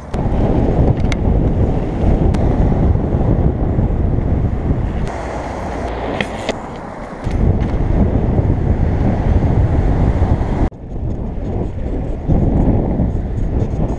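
Heavy wind buffeting on an action camera's microphone during mountain-bike riding, with a few sharp clicks and knocks. The noise drops suddenly about ten and a half seconds in, then builds again.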